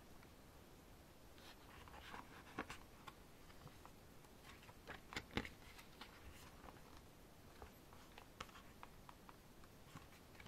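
Near silence with faint paper rustles and soft ticks as the pages of a photobook are turned by hand, a few scattered through, the clearest about five seconds in.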